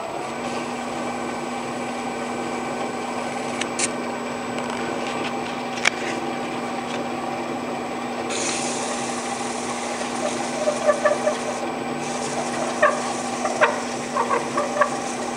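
Wood lathe running steadily with its motor hum, spinning a big leaf maple blank. From about eight seconds in, 320-grit sandpaper on a flat block rubs the blank's spinning end face to flatten it, a hiss in two passes with small squeaks; two light ticks come earlier.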